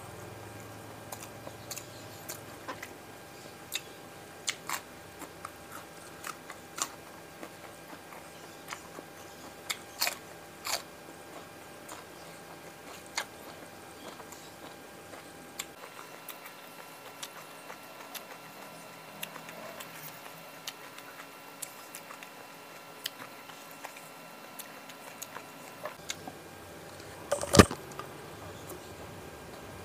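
Close-miked mukbang eating: a person chewing fried tilapia and rice with raw sambal, with wet mouth sounds and many small sharp crunches and clicks. One much louder crunch comes near the end.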